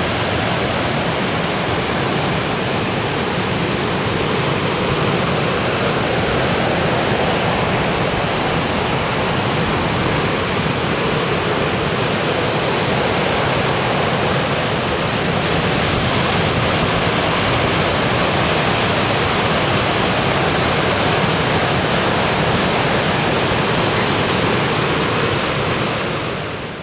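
Ocean surf: waves breaking and whitewater rushing in a continuous, steady wash of noise, fading out near the end.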